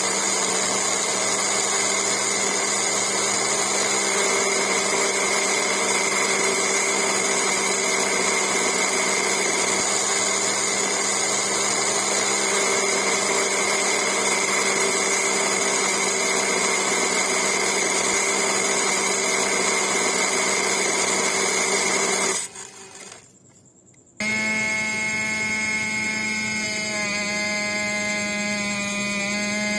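Small electric motor of a toy model borewell drilling rig running steadily with a high whine. It cuts out about 22 seconds in, and after a short pause a motor with a different, buzzier tone starts and runs on.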